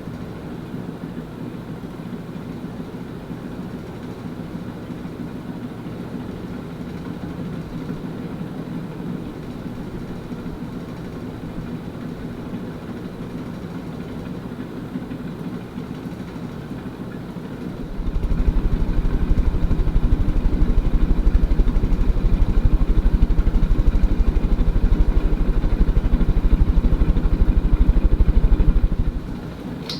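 Supreme Mark III Emperor-style ceiling fan running with a steady motor hum, its bearings giving the audible rumble the owner notes. About eighteen seconds in, a much louder low rumble sets in and stops shortly before the end.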